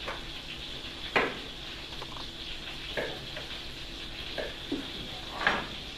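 Chicken frying in a cast-iron skillet with a steady sizzle. A sharp knock comes about a second in, and a few softer taps follow.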